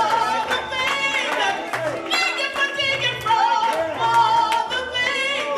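Music with a solo voice singing long, held notes over changing low bass notes.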